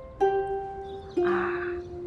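Slow guzheng music: single plucked notes, one about a quarter second in and another about a second later, each left ringing.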